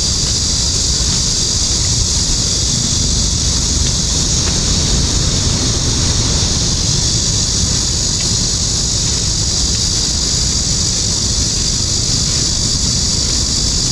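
Wind buffeting the microphone, a steady low rumble, over a constant high-pitched hiss.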